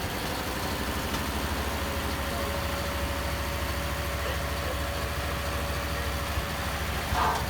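Tatra 613's air-cooled V8 idling steadily. A brief, higher-pitched sound comes near the end.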